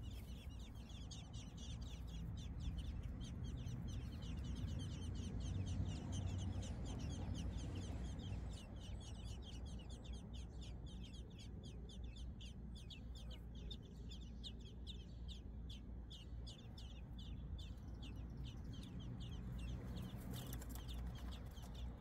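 American robin nestlings begging: a dense run of rapid, repeated high-pitched peeps as the parents feed them at the nest, over a low steady rumble.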